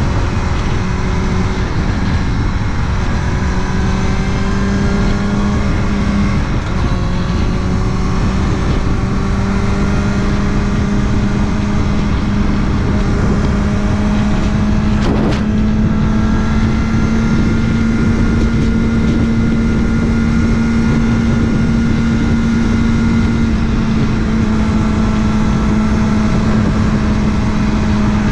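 Kawasaki ZX-6R inline-four motorcycle engine running at a steady cruise under way, its note holding even and creeping slightly higher, over heavy wind rush. A short click sounds about halfway through.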